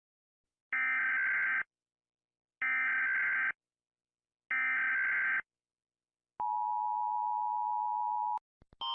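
Emergency Alert System SAME header: three buzzing data bursts of about a second each, a second apart. Then the steady two-tone EAS attention signal (853 and 960 Hz) sounds for about two seconds and stops. Two faint clicks follow near the end.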